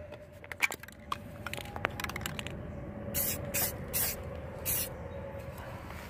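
Aerosol can of rust reformer spraying in about four short hisses, starting about halfway through.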